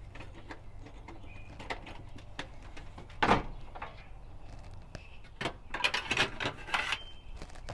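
Scattered clicks and knocks of a toolbox and parts bins being opened and handled, with one louder knock about three seconds in and a run of rattling clicks near the end.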